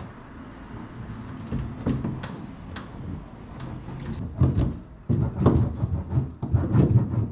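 Irregular knocks, clicks and rubbing from hands and tools working on a car trunk's sheet metal while sound-deadening mat is pressed into place, with a denser run of heavier thumps in the second half.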